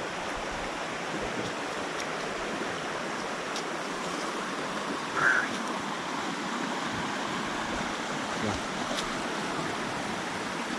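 River water rushing steadily, with one short louder sound about halfway through.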